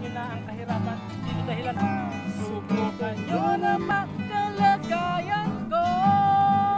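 Background music: strummed acoustic guitar under a sliding melody line that ends on a long held note near the end.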